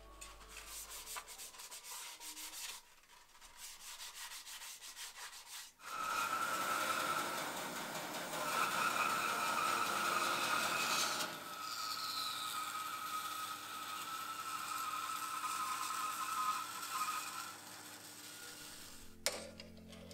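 Woodworking machines at work. First a belt sander rasps on a piece of wood held against it. About six seconds in comes a louder bandsaw, running and cutting a board with a steady high whine.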